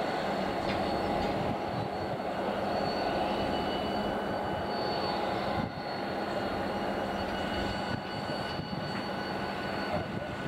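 Diesel locomotive engine running with a steady drone and a few constant whining tones, fading a little as it moves away.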